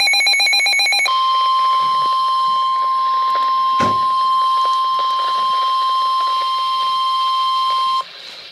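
Emergency Alert System weather warning signal: the last second of the buzzing digital SAME header, then the single steady 1050 Hz NOAA Weather Radio alert tone held for about seven seconds before cutting off. A single click sounds about four seconds in.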